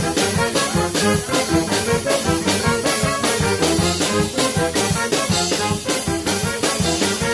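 Live band playing an upbeat jazz tune: a saxophone section with trumpet and keyboard over a steady beat.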